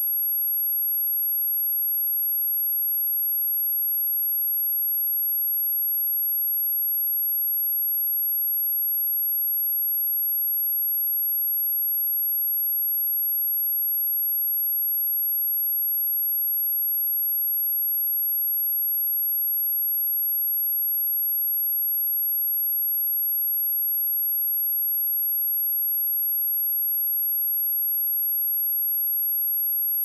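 A steady, very high-pitched pure sine-wave test tone at 11,483 Hz, held unchanging at one level, a speaker test and speaker-cleaning tone.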